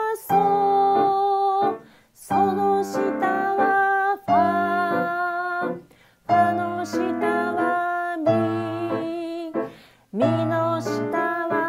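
Piano music with a voice singing along, in short phrases separated by brief pauses.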